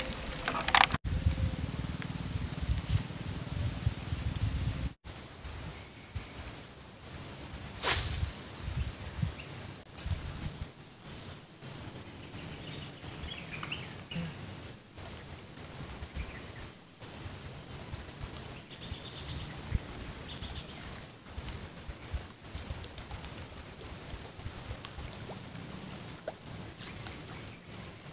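An insect calling in a steady high pulsing chirp, a few pulses a second, over a low rumble. A single sharp click comes about eight seconds in.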